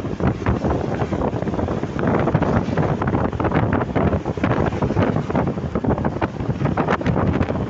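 Heavy wind buffeting on the microphone over a steady rumble of vehicle and road noise, with no horn sounding.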